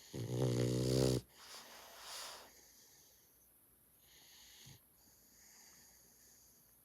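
A sleeping dog snoring: one loud, pitched snore about a second long at the start, followed by a breathy rush of air and then fainter, hissing breaths.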